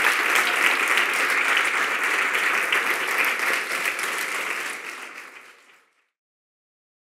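Audience applauding: dense, steady clapping that fades out about five seconds in and gives way to silence.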